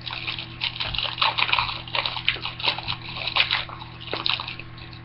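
Foil wrappers of SPX hockey card packs crinkling and tearing as a pack is opened by hand, a dense, irregular run of crackles with no pause.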